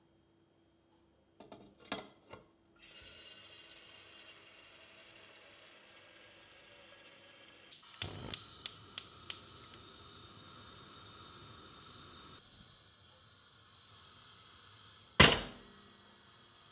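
A kitchen tap is turned on with a few clicks and water runs steadily. Then a gas hob's igniter clicks rapidly five or six times and the burner lights with a steady hiss. Near the end a pot is set down on the burner grate with one loud clunk.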